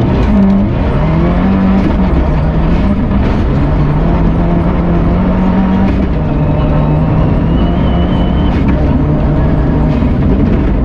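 Subaru Impreza N11 rally car's turbocharged flat-four engine, heard from inside the cabin at speed, its pitch climbing and dropping as it works through the gears, with scattered knocks from the car's body and underside.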